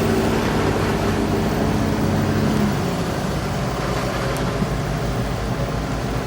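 Diesel engine of a Komatsu bulldozer running under load while pulling logs. About two and a half seconds in, its higher note drops away to a lower, steadier run.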